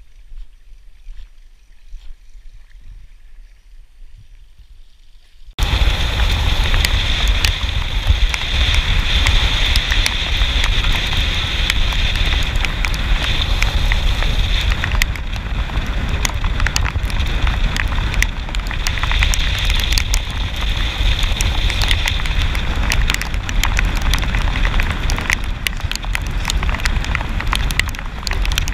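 Bass boat running at speed, cutting in suddenly about five seconds in after a quieter start. The outboard engine drones under heavy wind buffeting on the microphone, with many sharp ticks of rain hitting the camera.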